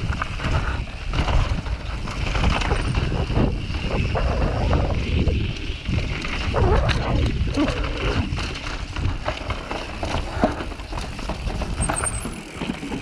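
Mountain bike riding fast down a dirt and rock trail, heard from a camera mounted on the rider: constant wind rumble on the microphone, tyres on dirt and rock, and many short knocks and rattles from the bike over bumps.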